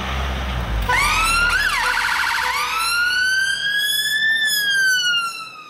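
Ambulance siren switched on about a second in: a quick rising sweep and a short rapid yelp, then a slow wail that rises and falls.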